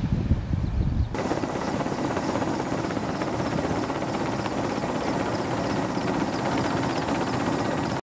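Wind buffeting the microphone for about a second, then a sudden change to the steady, rapidly pulsing noise of a helicopter's rotor and engine heard from on board.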